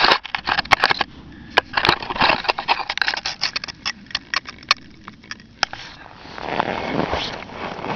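Crunching and crackling of handling and footsteps in cold, dry snow: a dense run of sharp clicks and crunches, thinning out after about five seconds, followed by a swell of rushing noise near the end.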